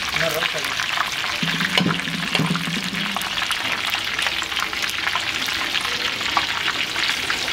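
Turkey kabab pieces deep-frying in hot oil in a large pan: a steady sizzle full of small crackles and pops.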